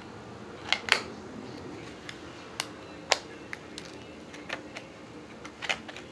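Sharp clicks and taps of a plastic fishing-lure package being handled and cut open with a knife: two close together about a second in, more near three seconds and a last cluster near the end.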